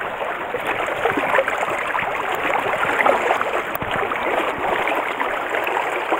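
Shallow mountain stream running close by, a steady rush of water.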